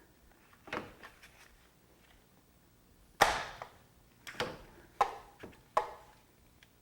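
Ratchet and 17 mm socket turning the PCV valve loose: about five separate sharp clacks, the loudest about three seconds in.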